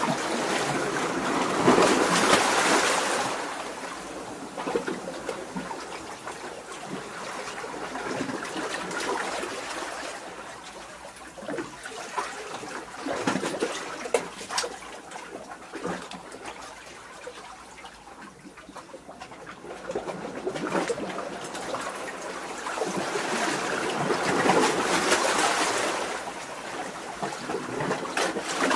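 Small waves surging in among rocks, washing up and draining back with splashes and trickling. There are two bigger surges, one near the start and one about 24 seconds in, and quieter slaps and gurgles between them.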